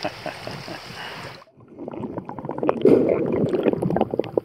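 Seaside air ambience with light clicks that cuts off sharply about a second and a half in, giving way to underwater sound: water churning and bubbling around the camera with dense crackling clicks.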